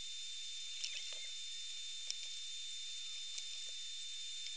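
Room tone: a steady hiss with a faint high whine, broken by three faint clicks about a second and a quarter apart.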